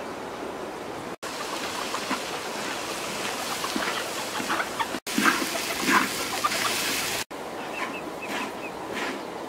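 Rice frying in a large wok, sizzling, with a spatula scraping and knocking against the pan, loudest a little past the middle. Near the end chickens cluck, and the sound is broken by three brief silent gaps.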